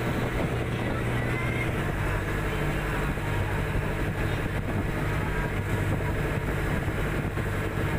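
Boat engine running steadily with an even, low drone that holds one pitch throughout.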